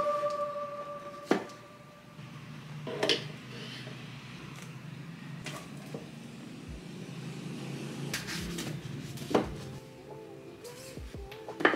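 Paperback manga volumes being set down and slid into place on an IKEA BILLY bookcase shelf: several light knocks and taps, spaced a second or more apart. Soft music fades out in the first couple of seconds and comes back near the end.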